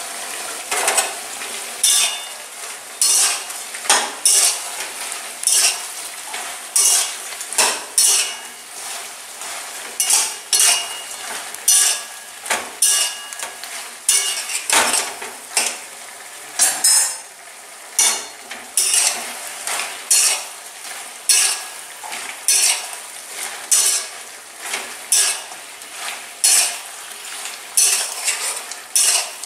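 Metal spatula scraping and knocking against a metal kadai as chicken pieces are stir-fried with tomato, onion and fresh ginger and garlic paste. Repeated scrapes, about one or two a second, sound over a steady sizzle of hot oil.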